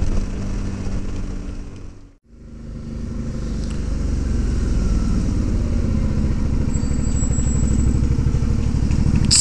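Suzuki V-Strom DL650's V-twin engine running, with road noise, heard from on board the motorcycle. The sound fades out to near silence about two seconds in and fades back in.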